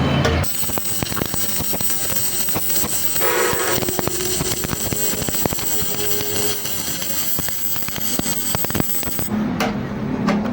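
Electric arc welding: a steady crackling hiss that starts abruptly about half a second in and cuts off suddenly near the end.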